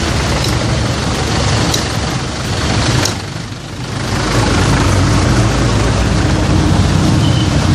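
A motor vehicle's engine running close by, a loud steady low rumble that dips briefly about three and a half seconds in, then holds steady again.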